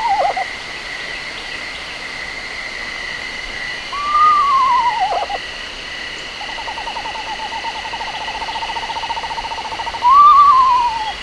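Recorded eastern screech owl calls played back from a smartphone bird-call app through a speaker. There are two falling whinnies, each about a second long, and between them a long trill held on one pitch for about three and a half seconds.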